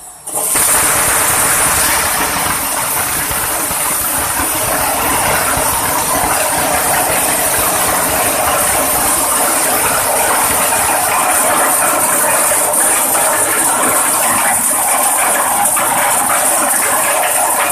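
Corn-processing machine running steadily, a dense continuous rattling hiss that starts abruptly just after the beginning.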